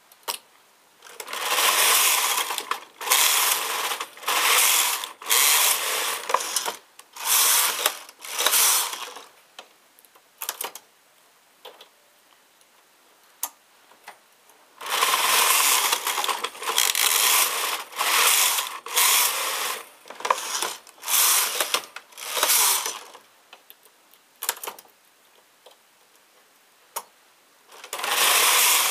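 Knitting machine carriage pushed back and forth across the needle bed, each pass a rattling mechanical stroke of about a second. Two runs of strokes with a quiet pause of several seconds between them, a few single clicks in that pause, and a third run starting near the end.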